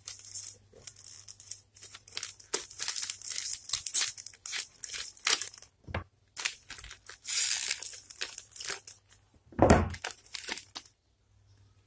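Clear plastic packaging bag crinkling and rustling as it is handled and torn open, with a dull thump about ten seconds in.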